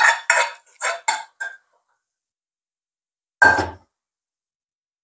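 A plastic spatula scraping and clattering against a small pan several times in quick succession as the last of the liquid is scraped out, then a single heavier knock of cookware about three and a half seconds in.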